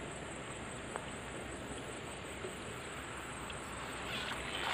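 Quiet riverside ambience: a steady drone of insects with a few faint ticks, the background growing a little louder near the end.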